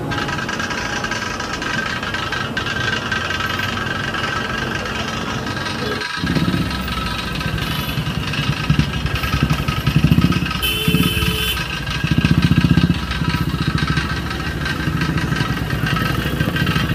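Steady machine hum with a low, pulsing engine throb that starts about six seconds in and swells a few times, like an engine running nearby.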